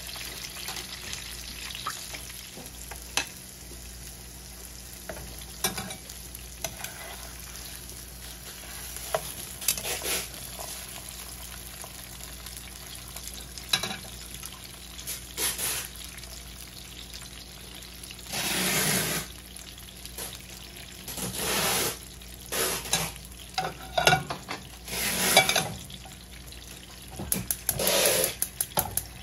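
Salmon fillets frying in butter in a skillet: a steady sizzle with scattered crackles, and several louder bursts of noise in the second half.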